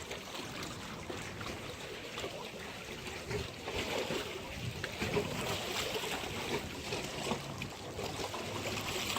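Water lapping and splashing at the water's edge: a steady wash of small splashes, a little louder from about halfway through.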